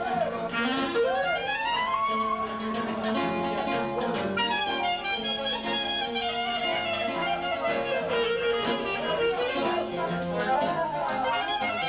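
Clarinet playing an ornamented old-style lăutărească melody full of pitch slides and runs, over accordion and electronic keyboard accompaniment with a steady repeating bass.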